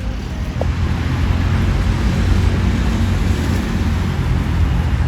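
Steady low outdoor rumble, the kind made by wind on the microphone or distant road traffic, with a brief faint chirp about half a second in.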